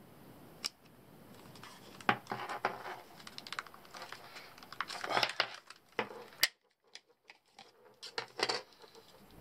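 Plastic battery box being handled: scattered clicks and scrapes as the cover is slid off an eight-AA battery holder, with the sharpest click about six seconds in.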